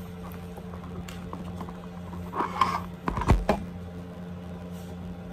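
Pokémon trading cards being handled and set down on a wooden tabletop: a short rustle of cards a little past two seconds in, then a few sharp taps and a low knock on the table about three seconds in. A steady low hum runs underneath.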